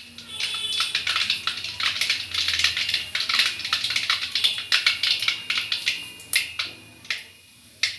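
Rapid small crackles and pops from a metal pot heating over a gas burner, thinning out after about six seconds into a few separate clicks near the end.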